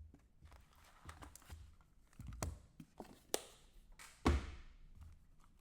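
A trading-card box and its packs being handled on a table: scattered light taps and knocks, a sharp click about three and a half seconds in, and a heavier thump just after four seconds.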